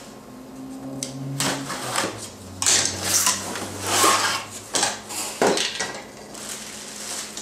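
Cardboard shipping box being opened by hand: packing tape slit with a hobby knife and the cardboard flaps pulled open, an irregular run of scraping, tearing and rustling sounds.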